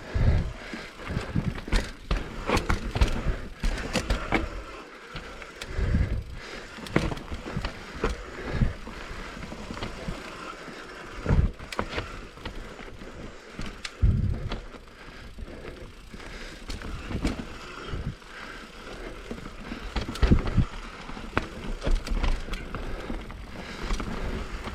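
Mountain bike ridden along tight singletrack: tyres rolling over dirt with a steady rumble, the bike clattering and rattling, and frequent sharp knocks and low thumps as it goes over bumps.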